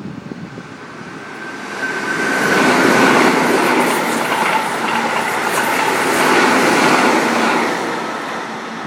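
Keihan electric train running past on the rails. The wheel-on-rail noise swells over about two seconds, stays loud with rail clatter and a thin whine for about five seconds, then fades away near the end.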